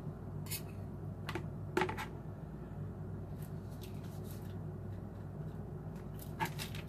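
Scattered light clicks and taps of a knife cutting blocks of cream cheese and handling them on a cutting board, over a steady low hum.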